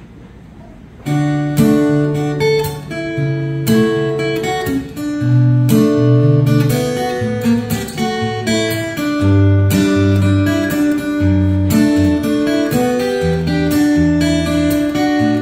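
Solo acoustic guitar starting about a second in after a short quiet, playing a plucked melody over low bass notes.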